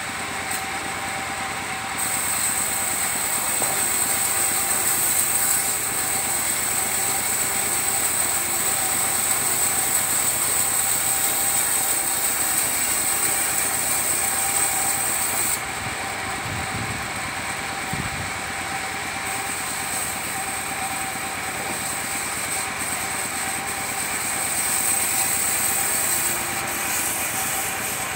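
Engine-driven sawmill saw cutting a coconut-wood log. The machine runs steadily throughout, and a high hiss of the blade in the wood swells about two seconds in. The hiss eases for a few seconds past the middle, with a couple of low knocks, then rises again for a second pass.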